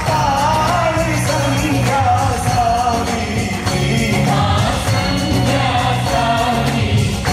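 Garba song music: a singer's wavering, ornamented melody over a steady repeating beat and bass.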